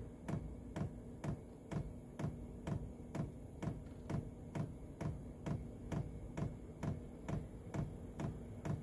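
Diesel heater fuel dosing pump ticking steadily, about two and a half clicks a second, as it primes fuel up the line.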